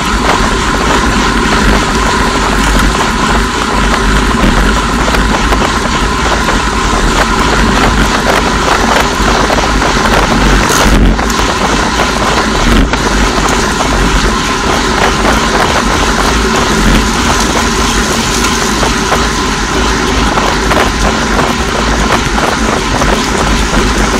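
Steady rushing wind noise buffeting a bicycle-mounted microphone at about 45 km/h, with tyre and road noise from the bunch underneath.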